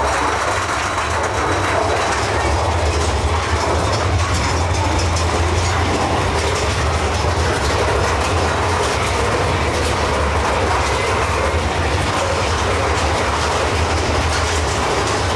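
Mine-train roller coaster running along its track, heard from on board: a steady low rumble with the clatter of the wheels.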